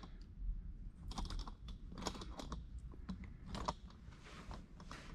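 Light scattered clicks and knocks from a camera being handled and repositioned on its mount, over a steady low hum of the shop.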